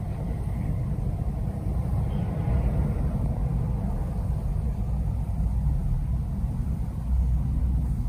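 A sleeping cat's steady low rumble, close to the microphone, as a hand strokes its belly.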